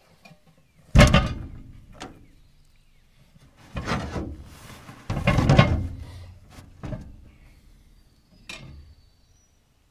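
Knocks and thuds on an aluminium tabletop as a shopping bag is unpacked and a cast iron camp oven is set down, with rustling of the bag. The loudest knocks come about a second in and about five seconds in, with lighter ones after.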